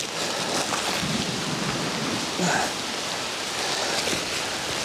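Steady rain falling on the trail and woods, with one short louder sound about halfway through.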